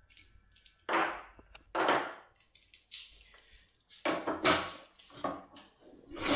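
Hands handling lock cylinders, keys and tools on a work surface: about six short rustles and knocks, a second or so apart.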